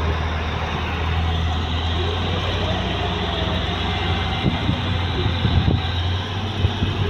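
Diesel engines of heavy earthmoving machines running, a steady low drone with mechanical clatter and a few short knocks in the second half.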